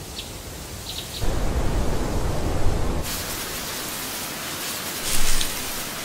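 A steady rushing hiss, a sound effect with no tune in it. It grows louder about a second in and swells briefly near the end.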